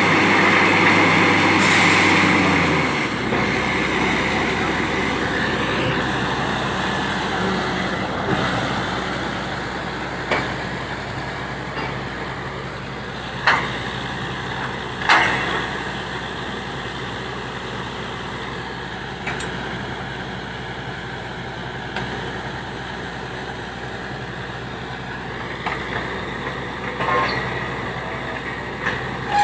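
Borewell drilling rig's engine running steadily. Its note changes about three seconds in, and a few sharp knocks come through over the steady running.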